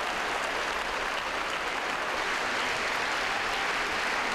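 Concert audience applauding steadily, a dense even clatter of many hands clapping.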